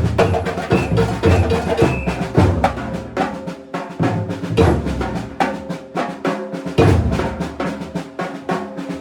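Batucada percussion ensemble playing a fast, driving rhythm together: deep surdo bass drums under snare drums and higher, sharper percussion. The deep drums drop out for short moments about three and a half seconds in and again near the end, leaving the higher drums playing.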